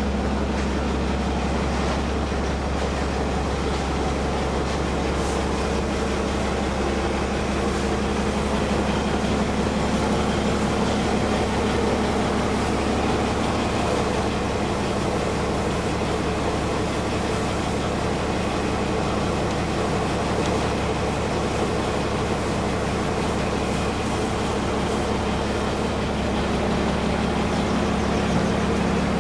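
A Keralan houseboat's engine running under way, a steady, unchanging low drone.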